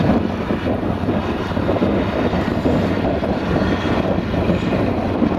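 Tractor engine running steadily under load while it mows grass with a mounted mower, a continuous drone.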